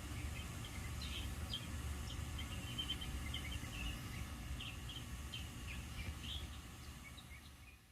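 Birds calling in many short, high squeaks and chirps, scattered and overlapping, over a low rumble; it all fades out near the end.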